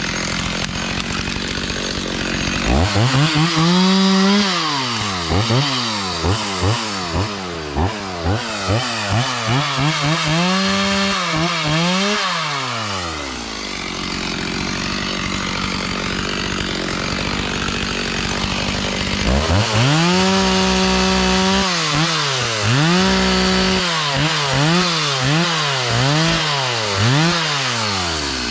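Gas chainsaw being revved up and down again and again, in two long spells of throttling, as it cuts wood, with a steady engine noise underneath between the spells.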